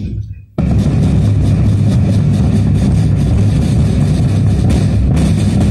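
Pipe band playing: bagpipes over a steady drone, with drums. The sound cuts out for about half a second at the start, then runs on steadily.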